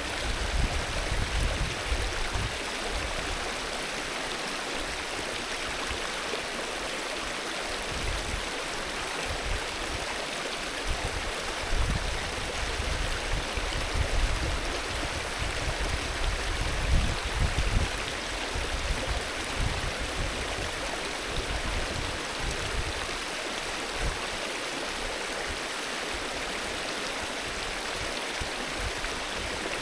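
Mountain river flowing: a steady rush of running water, with irregular low rumbling surges now and then.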